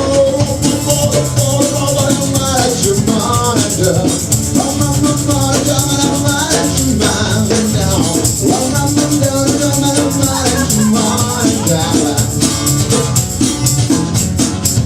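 Live band playing an instrumental passage of a song: a busy, steady percussion rhythm with a melodic lead line moving over it.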